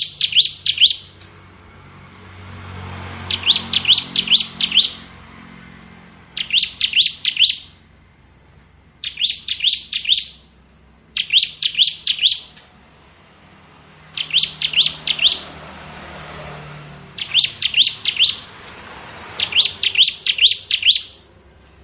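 Bar-winged prinia (ciblek) singing its rapid 'ngebren' song: about eight bursts, each a quick string of high, sharp whistled notes lasting about a second and repeated every two to three seconds.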